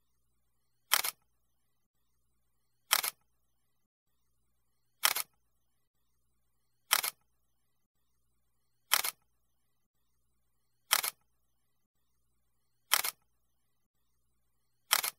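Camera shutter sound effect: a short two-part click-clack repeated eight times, about every two seconds, with near silence between, marking each new photo in a slideshow.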